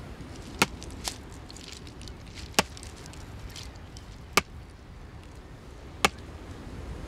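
Heavy single strikes of a tool on wood, five in all, four of them sharp and loud, coming about every one and a half to two seconds over a steady outdoor hiss.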